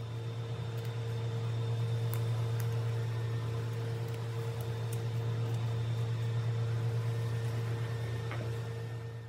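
A steady low machine hum with a few faint light ticks over it.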